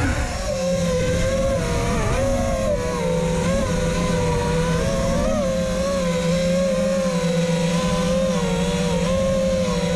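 FPV quadcopter's brushless motors and propellers whining steadily, the pitch wavering slightly as the throttle changes, heard from the camera mounted on the drone.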